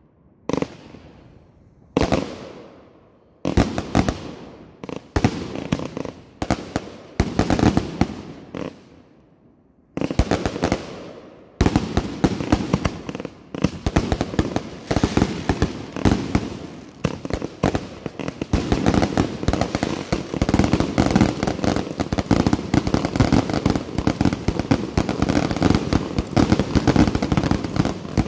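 Consumer fireworks: single bangs from aerial shells bursting about once a second, each fading away. About ten seconds in, a rapid barrage of shots and crackling begins and thickens into a dense, continuous volley.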